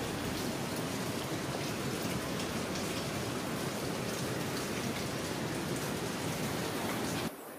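Steady rain falling, cutting off suddenly near the end.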